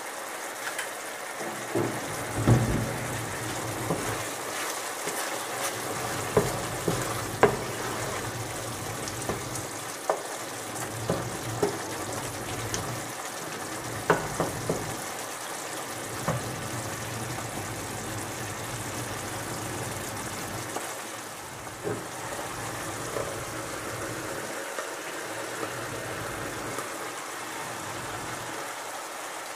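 Vegetables in tomato sauce sizzling steadily in a frying pan, with a wooden spatula knocking and scraping against the pan as it stirs, most often in the first half.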